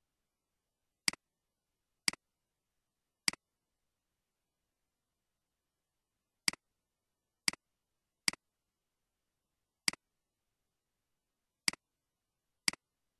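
Computer mouse clicking: nine single clicks at irregular gaps of about one to two seconds, each a sharp press followed straight away by a quieter release.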